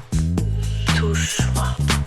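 Deep house music from a DJ mix: a steady kick drum on every beat, about two a second, under a pitched bass line.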